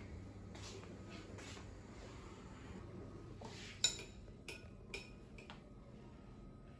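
Faint clinks of tableware: one sharp, ringing clink of china or glass about four seconds in, followed by a few lighter taps, over a low steady hum.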